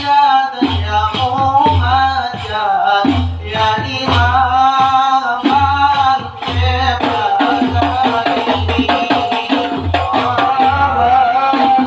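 Male voices singing sholawat to a hadrah ensemble of rebana frame drums. A lead singer on a microphone is carried by a steady rhythm of deep drum beats with sharp slaps between them.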